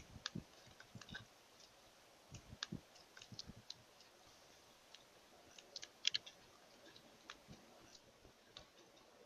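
Scattered, irregular soft clicks and taps, with a few low thumps among them, the loudest cluster about six seconds in.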